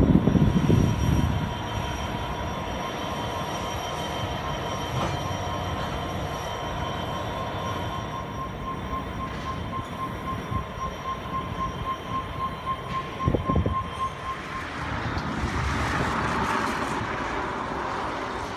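NSW 82 class diesel locomotives (8207 leading) moving past, their low rumble fading within the first couple of seconds. After that comes steady rail noise with a thin, steady wheel squeal and a single knock about two-thirds of the way through.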